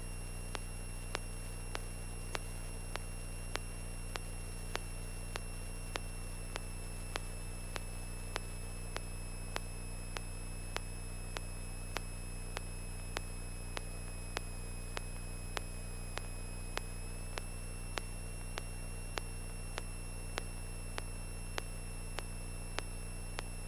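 Steady electrical hum and a thin high whine on a light aircraft's intercom audio feed, with a soft regular tick nearly twice a second. The whine's pitch sags slightly and then comes back up.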